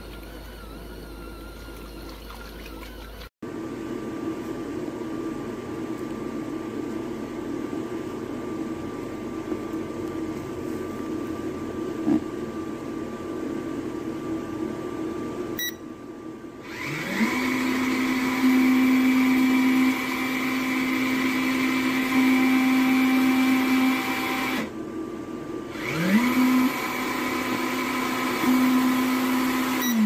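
Small electric motor of a BESDAS portable mini washing machine running steadily as it churns clothes in water. About 17 seconds in, the motor speeds up with a quickly rising whine and runs at a steady high pitch. It cuts out about 25 seconds in, then spins up again with another rising whine and winds down at the end.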